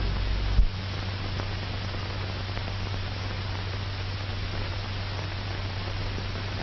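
Steady hiss with a low mains hum, the background noise of an old film soundtrack; a deeper rumble drops out about half a second in.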